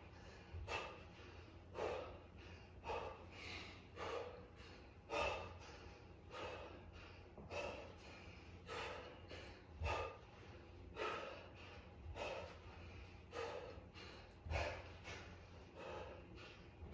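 A man breathing hard during exercise: short, forceful exhales about once a second in a steady rhythm, one with each V-up rep.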